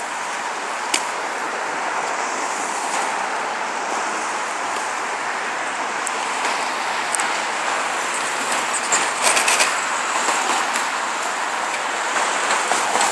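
Steady road traffic noise from cars passing on a busy multi-lane road, with a short run of sharp clicks about nine seconds in.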